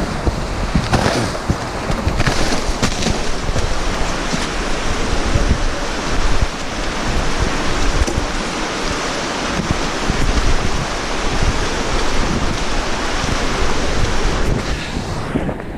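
Wind buffeting the camera microphone: a loud, steady rushing noise with a gusty, fluttering low end.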